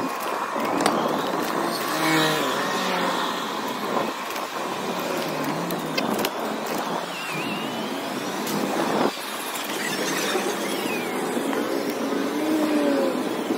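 City street traffic heard from a moving bicycle: a steady rush of traffic and wind noise as cars and motor scooters pass. Short engine tones rise and fall about two seconds in and again near the end.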